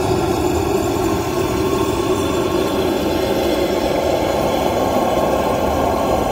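Motor-driven sprayer running steadily and evenly while the wand sprays a motor oil and diesel fuel mix onto the top of a pine fence post.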